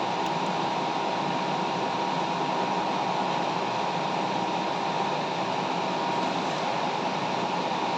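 Metal lathe running steadily, with a thin steady whine over an even whirr.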